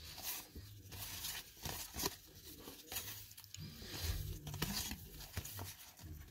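Baseball cards being thumbed off a stack by hand, the card stock sliding and snapping against itself in faint, irregular swishes and clicks.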